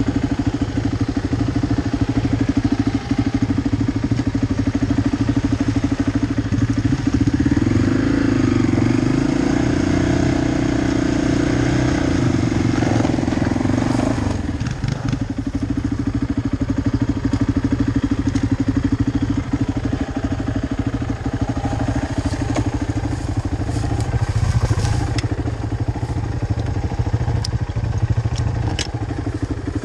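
Polaris Predator quad's engine running, held at higher throttle for several seconds while pulling another quad on a tow strap, then dropping back to a steady idle about halfway through. A few light clinks near the end as the strap hook is handled.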